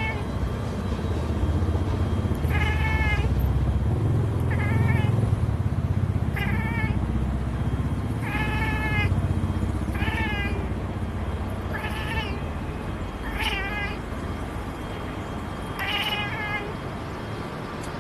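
Black and white domestic cat chirping at a pigeon it has spotted: the cat's prey-calling chatter. It gives about eight short chirps, one every second and a half to two seconds, over a low background rumble.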